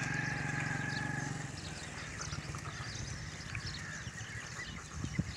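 A small engine running steadily with a fixed whine, fading out about a second and a half in. After it come irregular low rustles and thumps and short high ticks, as goats browse leafy fodder.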